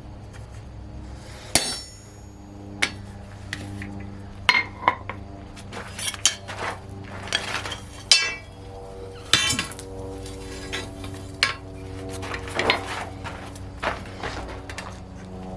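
Irregular hammer strikes and clinks of metal on steel, roughly one or two a second, several with a bright ringing tail.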